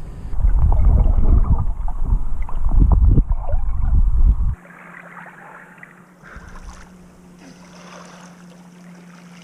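Water splashing and sloshing close to the microphone as someone swims in the lake, loud and choppy. It cuts off abruptly about four and a half seconds in to a much quieter stretch with a faint steady low hum.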